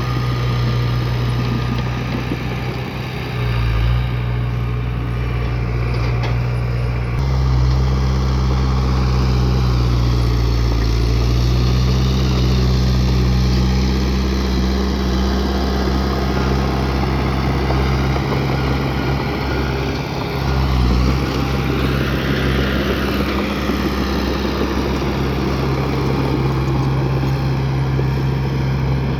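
Heavy-equipment diesel engine running under changing load, its low pitch shifting several times.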